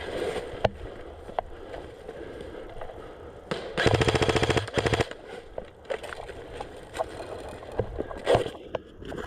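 Airsoft rifle firing one burst on full auto, a fast even run of shots lasting about a second, starting a little under four seconds in. Scattered single sharp snaps come before and after it.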